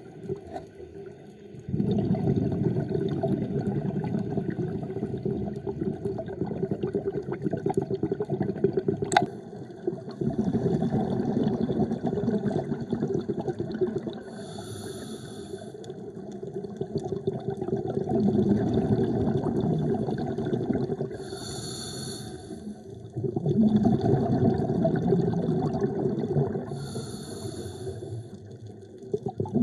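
Underwater breathing through a scuba regulator: long bubbly gushes alternate with short hisses that come three times, about every six seconds in the second half. There is one sharp click about nine seconds in.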